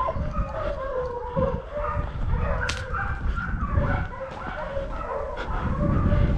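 Hunting dogs baying and yelping, with wavering calls, over a steady low rumble.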